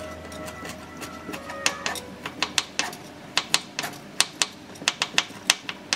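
Serrated kitchen knife chopping slices of ginger on a plastic cutting board: a quick, irregular run of sharp knocks of blade on board, growing louder after the first couple of seconds.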